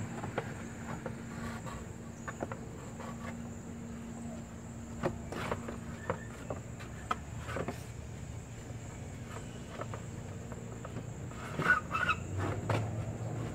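Scattered plastic knocks and clicks as a car's cooling fan shroud is pushed and worked down into place beside the radiator, loudest near the end. A faint steady high tone runs underneath.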